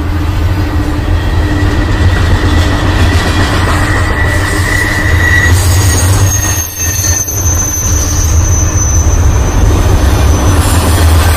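BNSF double-stack container freight train rolling past: a loud, steady rumble of steel wheels on the rails, with a thin high wheel squeal rising in about six seconds in and fading out around nine seconds.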